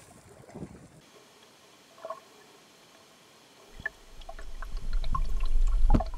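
Pike being unhooked with pliers, giving low handling knocks and rustles for about a second. Then the sound of an underwater camera: near quiet with a few small clicks, and from about two-thirds of the way through a low water rumble on the submerged housing builds up and grows loud.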